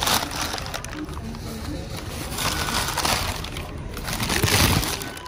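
Brown paper takeaway bags rustling and crinkling as a hand rummages in them and folds them up, in several bursts.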